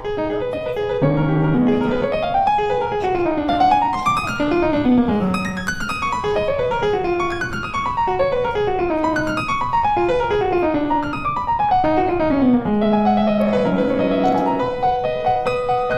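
Background piano music playing quick runs of notes that sweep down and up in pitch.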